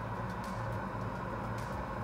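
Steady background hum and hiss, with faint light ticks now and then.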